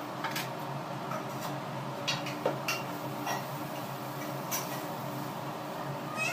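Scattered light clicks and taps of a ladle and plate against a flat dosa pan (tawa) as batter is poured and spread, over a steady low hum.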